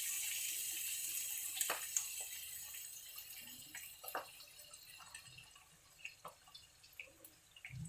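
Olive oil sauce sizzling in a pan, the hiss slowly dying down, with scattered small pops and crackles.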